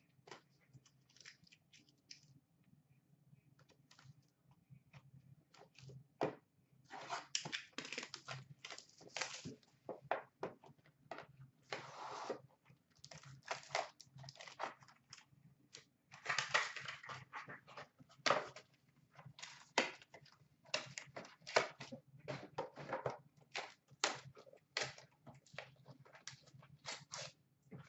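Crinkling plastic and foil packaging as a sealed box of trading cards is unwrapped and its pack taken out. The rustling comes in irregular bursts, faint at first and busier from about six seconds in.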